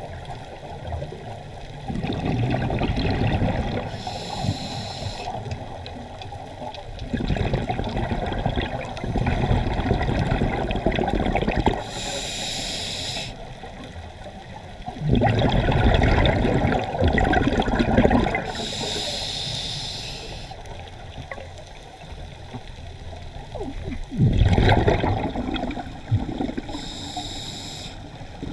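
Scuba diver breathing through a regulator underwater: a short hissing inhale, then a long bubbling exhale, repeating about every seven to eight seconds.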